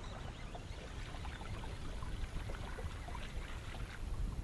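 Water lapping and trickling against a fishing boat's hull in small scattered splashes, over a low steady rumble.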